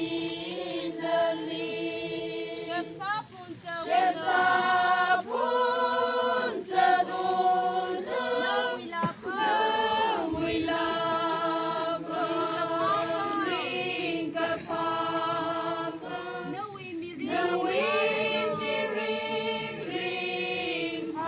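A group of voices singing unaccompanied, holding long notes in phrases with short breaks between them.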